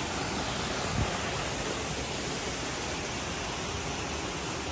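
Steady rushing of a waterfall and its rocky stream, with one brief soft thump about a second in.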